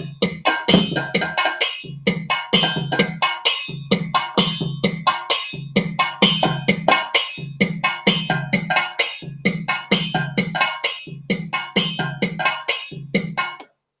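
Yamaha PSR-I510 keyboard's looper playing back a recorded loop in its Chenda drum voice: a steady rhythm of drum strikes, about three a second, that stops shortly before the end.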